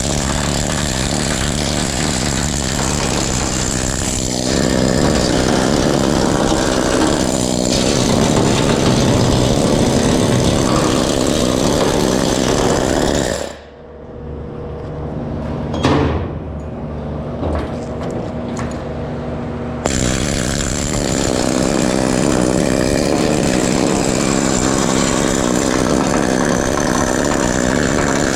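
Pneumatic needle scaler hammering weld slag off steel, a loud dense rattle of needles. It runs for about thirteen seconds, stops with one brief burst, then runs again for the last eight seconds or so.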